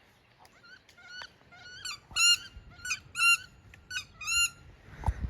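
High, squealing duck calls, about eight in a row, each rising at its start, getting louder and then trailing off. A low thump near the end.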